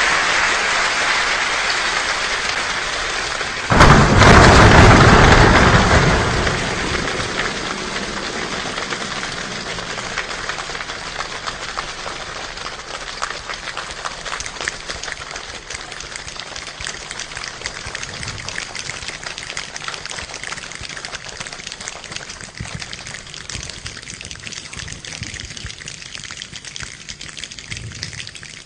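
A rainstorm imitated by people rather than real rain: a steady rain-like patter of many small taps, a sudden loud thunder-like crash about four seconds in that fades over a few seconds, then the patter slowly thinning out and quietening like a storm dying down.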